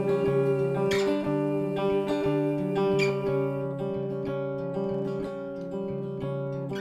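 Hollow-body archtop guitar played solo: picked notes in an even rhythm over sustained low notes, getting a little quieter in the second half.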